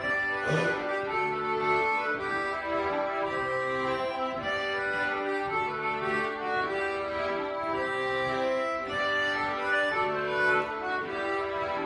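Youth folk ensemble playing an instrumental folk tune together, with held melody notes over a steady bass line. A brief noise cuts across the music about half a second in.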